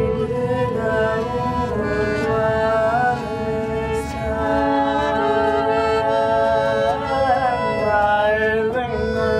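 Live acoustic music: a man sings a slow, gliding melody over a piano accordion's held chords and a small plucked string instrument, with a violin.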